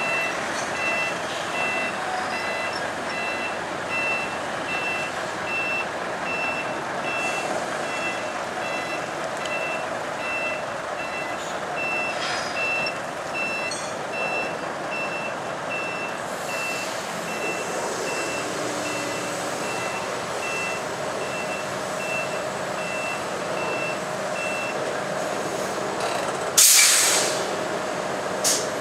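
Reversing alarm of a Mitsubishi Fuso tractor truck beeping at an even rate over its running diesel engine as it backs a low-loader trailer. The beeping stops about 25 s in. About two seconds later comes a loud, short hiss of air brakes, and a smaller hiss follows near the end.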